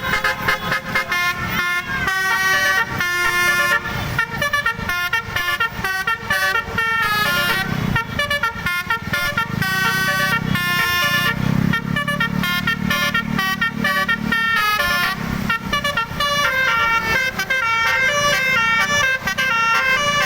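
Basuri-style melodic bus horn (klakson telolet) playing a tune of short, quickly changing notes one after another, with a low rumble underneath through the middle stretch.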